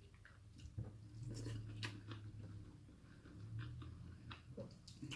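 Faint close-miked chewing, with small scattered smacks and clicks of a person eating a meal of adobo and rice, over a steady low hum.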